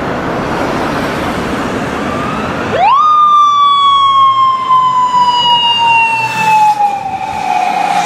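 Road traffic noise, then about three seconds in a police motorcycle siren winds up sharply and holds, its pitch slowly falling: the motorcycle starting an emergency run.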